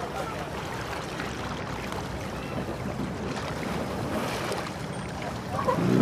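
Water splashing and spraying as an elephant blows water from its trunk and splashes in a shallow river: a steady, even splashing noise with no separate strikes.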